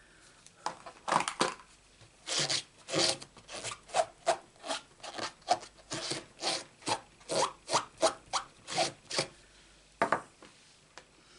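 Red rubber stamp on a clear acrylic block being scrubbed back and forth on a pad to clean off the black ink, in quick even strokes about two or three a second. The scrubbing stops about nine seconds in.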